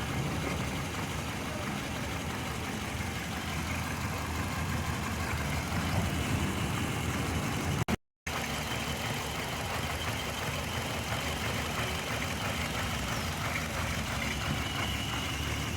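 Hyundai Matrix four-cylinder petrol engine idling steadily. The idle is unstable from a misfire, which the mechanic traces to uneven injection from injectors 1 and 3, shown by black spark plugs in cylinders 1 and 3. The sound cuts out completely for a moment about eight seconds in.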